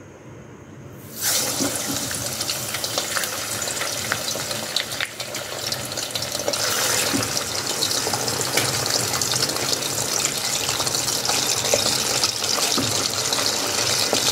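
Raw chicken pieces going into hot oil in an iron karahi: a sudden loud sizzle starts about a second in and carries on steadily, full of fine crackling, getting a little brighter about halfway through.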